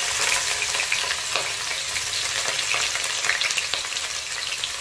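Sliced onion sizzling in hot oil and ghee in a kadai: a steady frying hiss full of small crackles, easing slightly toward the end.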